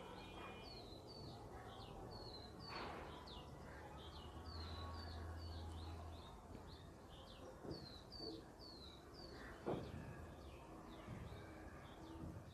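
A small bird chirping in the background: quick, high, short chirps about two a second, thinning out after about nine seconds. A low hum runs under the first half, and two soft knocks come, one about three seconds in and one near ten seconds.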